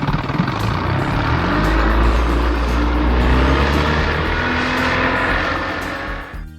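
Twin-engine jet boat running at high speed, its engine note rising over the first few seconds; the sound fades out near the end.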